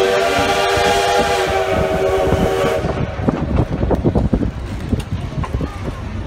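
Steam locomotive whistle blowing one long, steady blast that cuts off about three seconds in. After it comes the rumble and clatter of the moving train.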